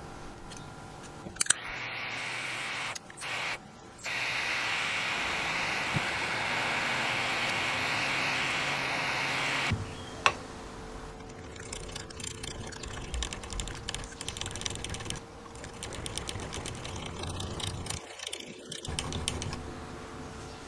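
A steady hiss for about eight seconds, broken once near the start, then a click and a run of small metallic clicks and taps as small parts are fitted into a vintage nightlatch's lock case.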